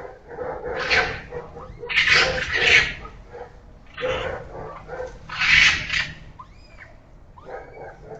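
Animal cries of an unknown kind: a run of harsh, screechy calls, each lasting up to about a second, with a few short squeals that rise and fall between them.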